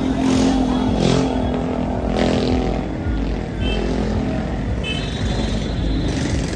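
Busy road traffic: motorcycles and other vehicles running past with a crowd on foot alongside, and short high beeps twice, about halfway through and again about five seconds in.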